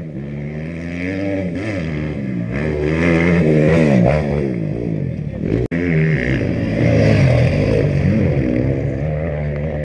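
Enduro race motorcycle engine revving hard as it passes close on a dirt track, its pitch climbing and dropping again and again. The sound cuts out for an instant about halfway through.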